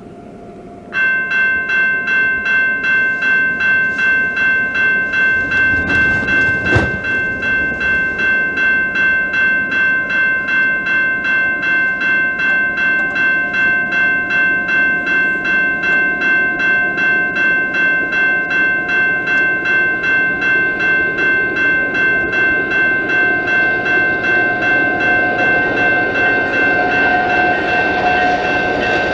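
Railway crossing warning bell ringing in even strokes, about two a second, starting about a second in. Under it the rumble of an approaching freight train builds near the end, with a single sharp knock about seven seconds in.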